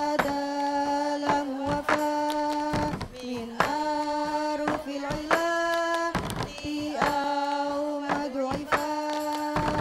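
Young women's voices chanting lalaran in unison, holding long steady notes of about a second each, with sharp knocks of plastic cups struck on a table between the notes as rhythm.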